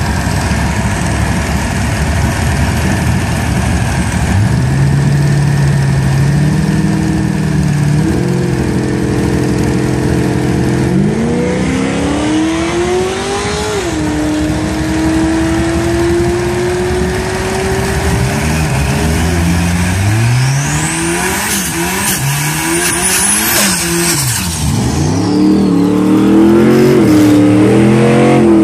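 Turbocharged four-cylinder engine of a Mitsubishi Conquest drag car revving on the start line. The revs climb in steps and hold steady for a few seconds, then swing rapidly up and down before the car launches near the end.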